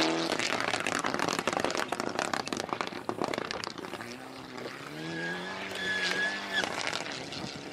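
Rally car driven hard on a loose gravel stage. Its engine is running at high revs, with a rattle of gravel and stones thrown up for the first few seconds. Then the engine note rises again as the car accelerates away, with a high whine over it.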